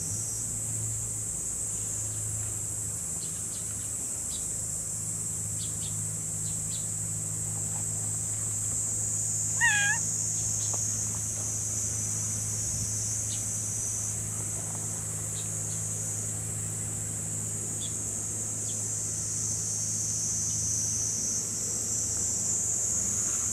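A cat gives one short meow about ten seconds in, over a steady high-pitched insect drone and a low steady hum.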